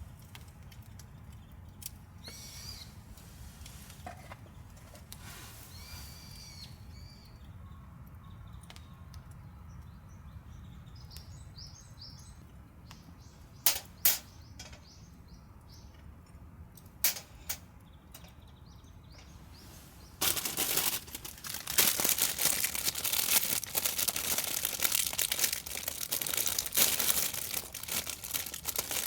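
A few faint bird calls early on and a handful of sharp clicks midway, then from about two-thirds in a loud, dense crinkling and rustling that keeps on.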